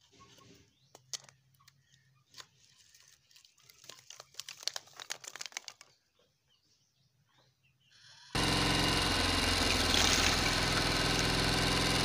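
Small battery-powered electric motor of a homemade model tractor's tipping trolley switched on abruptly about two-thirds of the way in and running with a steady whine as it raises the bed to dump its load of sticks. Before it, light clicks and rattles of dry sticks being handled.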